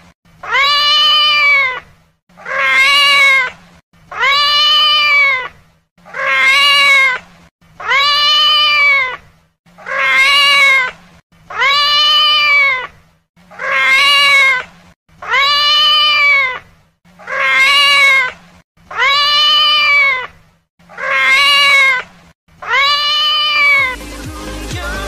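Domestic cat meowing: the same long meow, rising then falling in pitch, repeated about a dozen times at one every two seconds. In the last second, electronic music with a steady beat begins.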